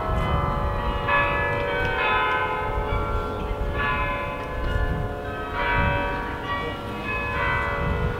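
Tower bells ringing, several pitches struck one after another about every one to two seconds and left to ring, over a low background rumble.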